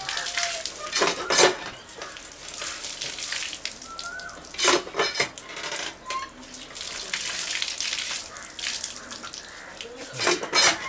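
Cast-iron hand pump being worked: metal clanks from the handle and pump head, loudest about a second in, around five seconds and near the end, over water splashing from the spout onto hands and the concrete below.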